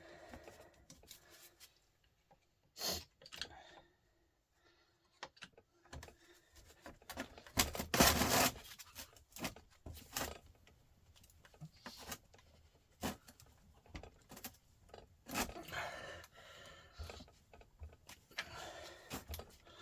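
Metal tools and starter-motor parts being handled during disassembly: scattered clinks, knocks and scrapes, with one louder, longer scraping noise about eight seconds in.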